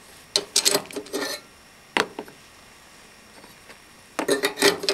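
A scooter's metal fuel cap under the seat being twisted open and lifted out of its filler neck: a run of metallic clicks and clinks, a single sharp click about two seconds in, and more clinking near the end.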